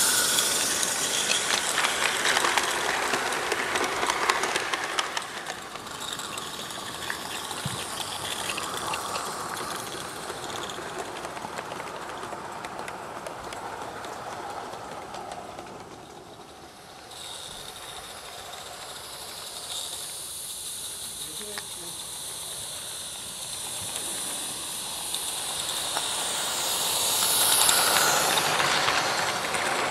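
A live-steam garden-scale locomotive hissing steam as its train of wagons rolls along the track. The hiss is loud at first, dies down to a quieter stretch in the middle, and grows loud again near the end as a train passes close by.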